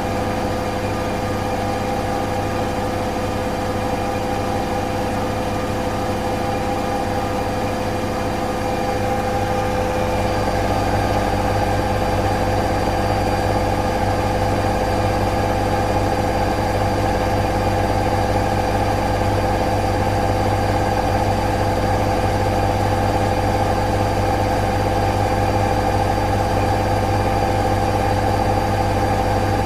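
Gorenje WPAM74SA1T washing machine running: a steady motor hum with several fixed tones, getting a little louder about nine seconds in.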